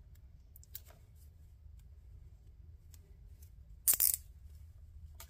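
A cable zip tie pulled through its locking head, a short ratcheting zip about four seconds in, with a few faint handling clicks before it.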